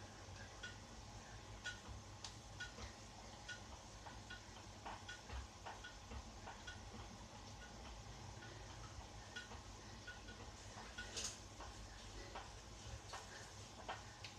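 Indoor spin bike being pedalled: faint, fairly regular ticks about once or twice a second, with scattered sharper clicks over a low steady hum.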